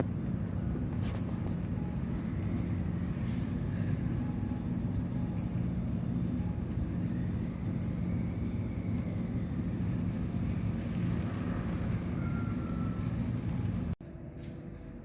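Steady low engine hum, like a motor vehicle running. It drops abruptly to a quieter background just before the end.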